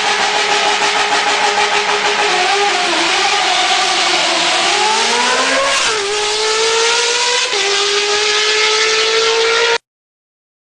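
Ferrari engine held at very high revs near the rev limiter, with a steady high pitch that dips, climbs, then drops sharply twice. The sound cuts off suddenly near the end.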